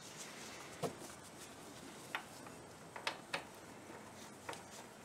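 A handful of faint, sharp clicks and light taps of metal parts being handled as the oil drain tube fitting, fitted with a new O-ring, is threaded back into the mower engine by hand.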